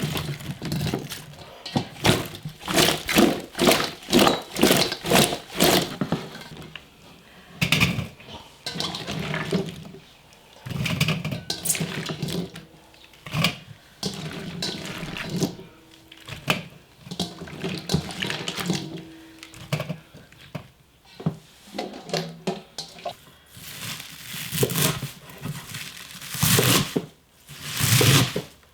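Water sloshing and splashing in a sink or basin in repeated irregular bursts, as food is washed by hand.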